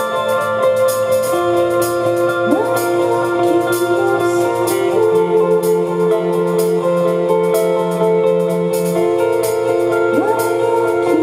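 A live rock band playing, with electric guitars, bass and drums. Layered, sustained guitar chords ring over a steady beat of regular cymbal strokes, and a rising pitch swoop sounds twice.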